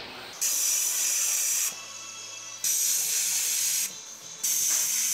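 Compressed-air vacuum tester hissing in three bursts of about a second each as it is pressed onto one cylinder-head port after another. It is vacuum-testing the seal of freshly lapped valves.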